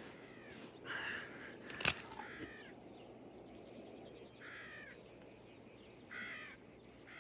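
Crows cawing, about four harsh calls spaced a second or two apart, with a single sharp click about two seconds in.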